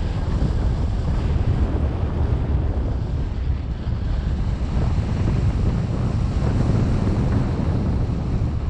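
Steady wind rushing and buffeting over the microphone.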